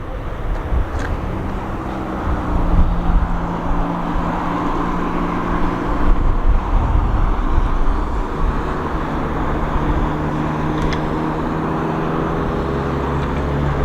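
A line of cars driving past with a steady engine hum and road noise. One engine note holds from about a second in to about five seconds, and another steady engine note comes in about eight seconds in and carries on.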